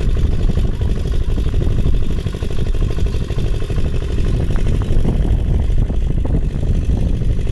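An engine running steadily, with a fast, even low pulse.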